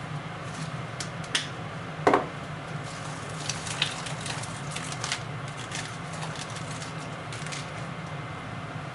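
Kitchen clatter: a few sharp knocks and clinks, the loudest about two seconds in and a cluster a little later, over a steady low hum.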